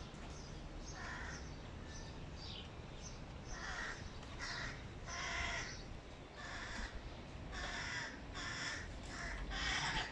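Hooded crow fledglings begging for food from a parent with short repeated calls, few at first, then coming once or twice a second and growing louder from about four seconds in.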